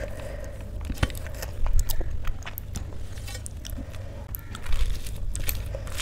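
Close-miked chewing of a mouthful of rice and fried eggplant, with wet mouth clicks and occasional crunches.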